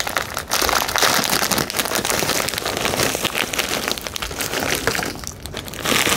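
Close crinkling and crackling of a plastic bag of oyster crackers as it is torn open and handled, with the small crackers rattling and pattering as they are tipped out into a cup of soup. There is a short lull about five seconds in.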